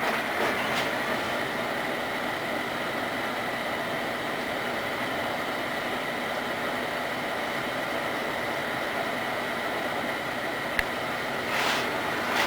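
Microwave oven running: a steady hum with a thin, high, constant whine and a single click near the end.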